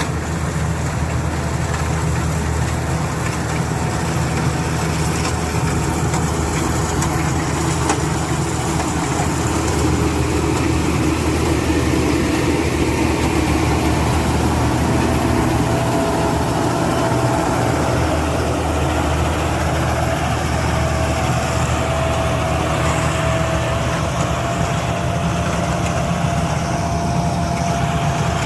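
Rice combine harvester's engine running steadily, with a steady whine joining in about halfway through.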